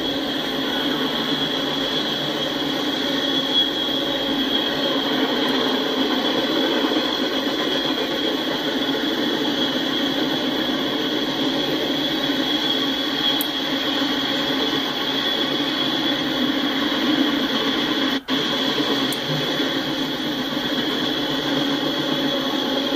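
Loaded freight cars (covered hoppers and tank cars) rolling past on steel wheels, a steady rumble of wheels on rail with a constant high-pitched ring over it. The sound drops out for an instant about eighteen seconds in.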